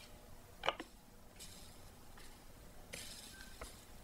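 Soldering iron melting solder onto the copper foil of a stained glass piece: faint hissing of the flux, with a short click about a second in.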